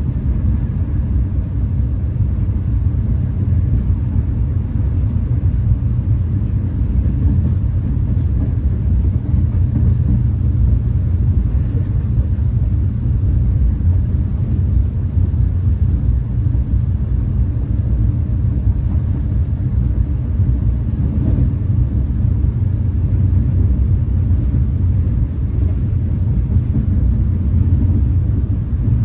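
Steady low rumble of a Renfe class 130 (Talgo 250) high-speed train heard from inside the passenger coach while running at speed.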